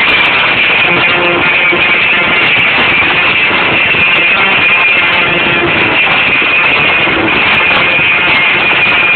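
A live band playing loudly, with electric guitar to the fore, heard from the audience in front of the stage.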